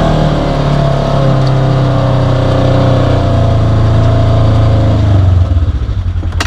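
Polaris RZR side-by-side engine running loudly at raised revs, its pitch sinking slowly, then dropping into an even, pulsing idle about five seconds in.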